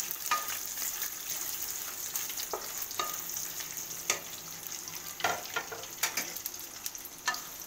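Cashews and raisins frying in oil and ghee in a nonstick kadai: a steady sizzle, with scattered sharp clicks of a wooden spatula scraping and tapping the pan as they are stirred.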